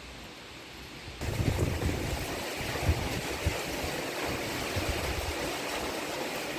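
Heavy rain falling steadily, with wind gusting against the microphone. It turns abruptly louder about a second in.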